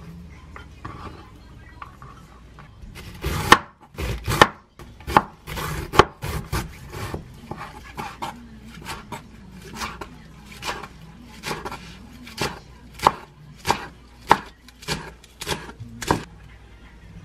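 Chef's knife chopping leafy greens on a wooden cutting board. It makes a string of sharp knocks of the blade on the board, irregular but roughly two a second. They start about three seconds in and stop shortly before the end.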